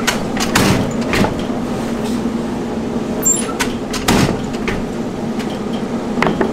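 Candy batch roller and rope sizer running with a steady hum while a hard-candy rope is drawn out, with several short sharp knocks over it.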